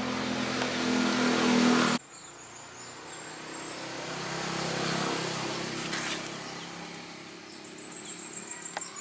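Motor vehicle engine running close by with a steady low tone, cut off abruptly about two seconds in. A quieter vehicle then passes, swelling and fading. Near the end a bird chirps rapidly at a high pitch.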